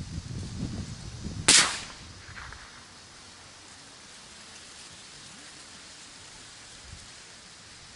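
A single shot from a CZ 455 Varmint .22 LR bolt-action rifle about a second and a half in, sharp and short, over a steady outdoor hiss with some low rumble before it.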